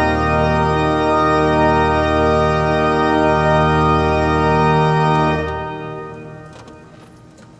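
Pipe organ principal chorus from a freshly restored windchest, its 16-foot double diapason, 8-foot principals, 4-foot octaves and 2-foot fifteenth, holding a full chord. The chord is released about five and a half seconds in and the sound dies away in the hall's long reverberation.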